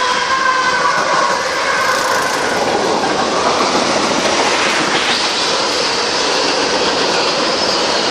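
Freight train passing close by, its diesel locomotives and then a line of tank cars going past, steel wheels clacking over the rail joints in a loud, steady rush of noise. A thin high tone near the start fades away within a few seconds.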